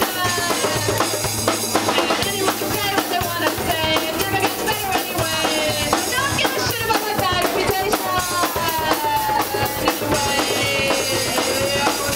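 A small band playing live, acoustic: drums keeping a steady beat under instruments, with a voice singing in long gliding lines over them.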